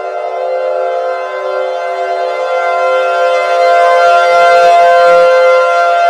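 Civil defense siren sounding a steady, multi-tone wail that grows louder partway through.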